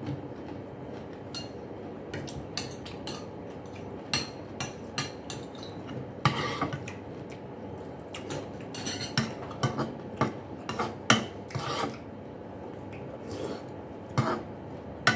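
Metal spoon clinking and scraping against a soup bowl, with eating sounds, heard as an uneven string of short clicks and clinks.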